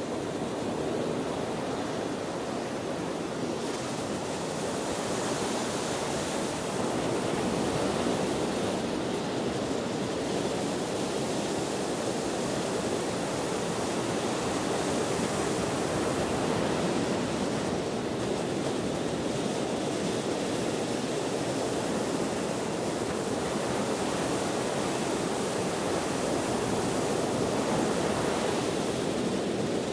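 Ocean waves washing in, a steady dense rush with slow gentle swells, mixed with wind.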